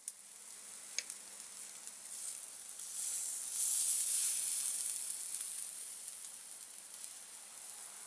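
Ribeye steak sizzling directly on red-hot charcoal, a steady high hiss that swells to its loudest around four seconds in, as tongs lift the steak off the coals, then slowly fades. A light click about a second in.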